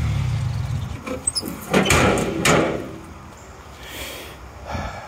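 A motor vehicle's engine running, then cut off within the first second. A few sharp clunks and scrapes follow, about one and two seconds in, with fainter knocks near the end.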